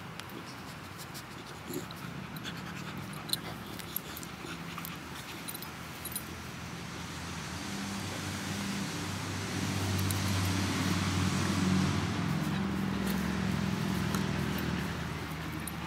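Two puppies play-fighting, with low play growls that get louder through the second half, along with panting and scuffling.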